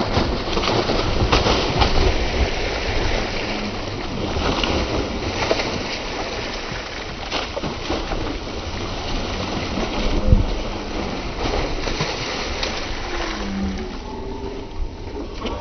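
A gaffed yellowfin tuna thrashing at the surface against the boat's side, churning and splashing the water with repeated sharp slaps, easing off near the end as it is hauled up out of the water.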